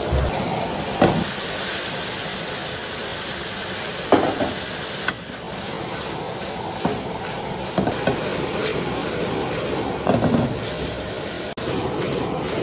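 Puffer fish pieces frying in a nonstick wok over a gas flame: steady sizzling, with a few sharp knocks of a metal ladle against the pan and the food shuffling as the wok is tossed near the end.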